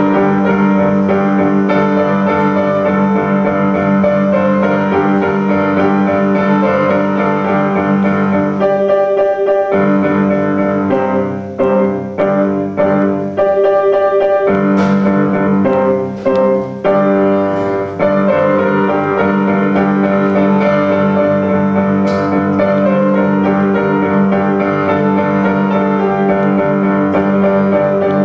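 Grand piano being played: a melody over a steady sustained bass line, with a few short breaks in the playing about halfway through.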